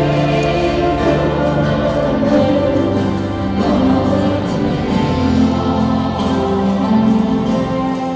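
Congregation and choir singing a hymn with instrumental accompaniment and a steady beat.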